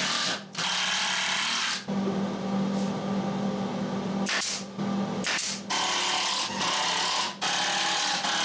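Power tool motor running in a string of bursts of one to two seconds, separated by short breaks, with a steady hum under the noise of the work.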